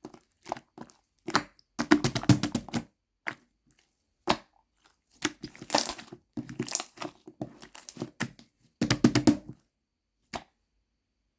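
Crinkling and crackling handling noise, like plastic or packaging being crumpled, in irregular clusters of bursts. It stops about ten seconds in after one last short click.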